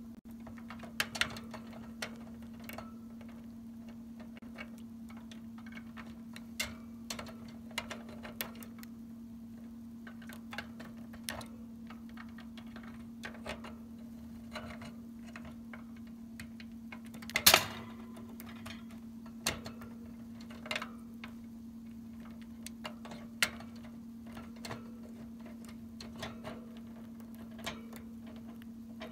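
A lovebird's beak and the food it carries clicking and tapping irregularly against a plastic water dish and wire cage bars, with one louder knock a little past halfway, over a steady low hum.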